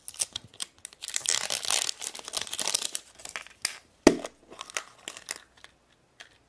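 Crinkling and tearing as the plastic wrapper is stripped off a plastic toy surprise egg. A single sharp snap about four seconds in as the egg's two plastic halves pop apart, then lighter crinkles of the packet inside.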